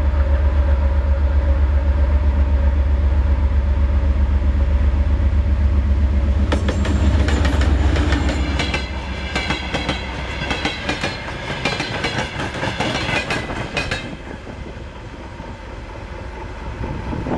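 A diesel train passing close by: a loud low engine throb for the first several seconds, then the wheels clattering rapidly over the rail joints as the cars go by, fading off about two-thirds of the way through.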